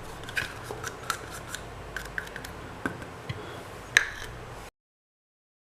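Light, irregular clicks and taps of kitchen utensils being handled, about a dozen, with one sharper click near the end. The sound then cuts off abruptly to silence.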